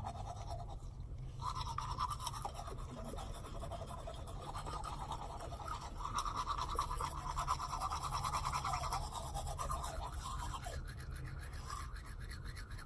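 Teeth being brushed with a manual toothbrush: rapid back-and-forth scrubbing strokes with short pauses, over a steady low hum.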